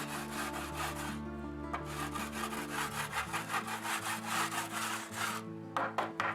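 Rapid back-and-forth scraping strokes on a wooden form board, several a second, as dried concrete is cleaned off it. The strokes stop about five seconds in, followed by a couple of short knocks, with background music throughout.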